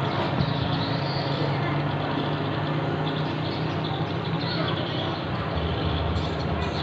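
Steady street ambience of light traffic, with the low hum of a distant motorcycle engine.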